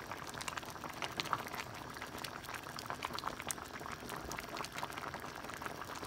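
Pot of chicken and cabbage soup boiling on the stove: a steady bubbling with many small, quick pops.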